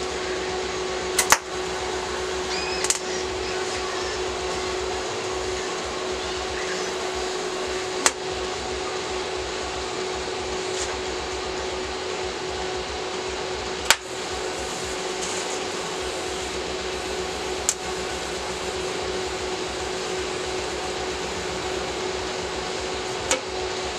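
TIG welding arc running: a steady hum over an even hiss, with a few sharp clicks scattered through it.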